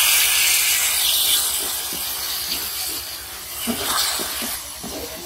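Onion and tomato masala sizzling and hissing in a hot aluminium pot as a little water hits the hot oil, loudest in the first second or so and then easing off. A wooden spatula scrapes and stirs through it in short strokes.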